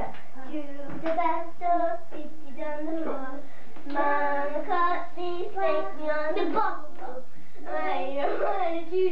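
Young children singing in high voices, in several phrases with short pauses.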